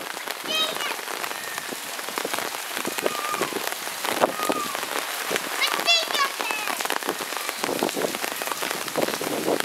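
A rain shower falling steadily: a constant hiss with many close drops tapping on surfaces.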